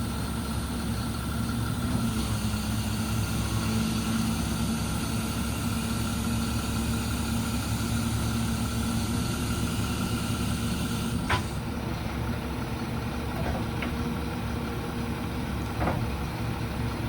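A 7.2-litre Caterpillar C7 diesel runs steadily with the PTO engaged, driving the hydraulic pump while the truck's service crane is raised. A sharp click comes about 11 seconds in, after which the hiss dies down, and two lighter clicks follow near the end.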